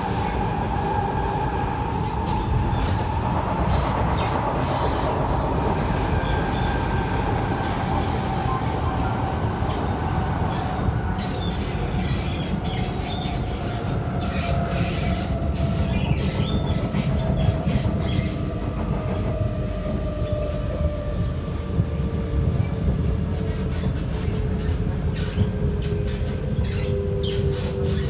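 Interior of an SMRT C751B metro car running on the track: a steady low rumble of wheels and running gear, with a whine that slowly falls in pitch, and occasional clicks.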